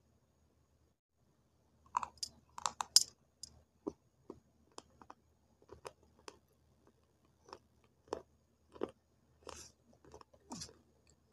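Close-up crunchy chewing of dried multani mitti (fuller's earth) clay pieces coated in clay paste. It starts about two seconds in with a cluster of loud crunches, then goes on as irregular, sparser crunches and clicks.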